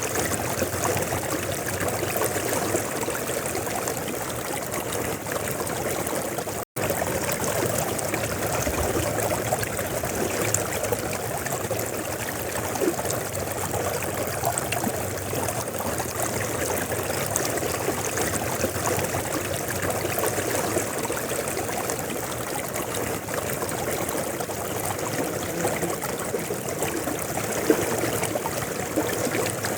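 River water flowing steadily, with an even rushing and trickling. It cuts out for a split second about seven seconds in.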